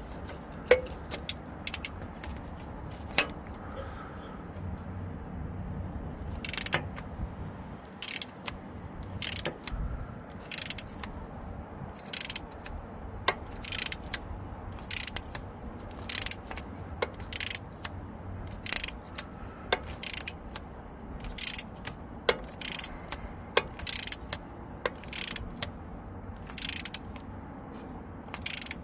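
Ratchet-type torque wrench being worked in short strokes, giving a rattling burst of ratchet clicks on each backswing, about one to two a second and quicker in the second half, as a new oil pressure sensor is driven in against stiff threads.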